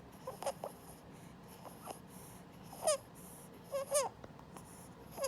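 Three-week-old infant's inspiratory stridor from laryngomalacia: short squeaky, chipmunk-like noises on his in-breaths, about one a second, the loudest around three and four seconds in. The squeak is the sign of floppy tissue above the voice box collapsing into the airway as he inhales.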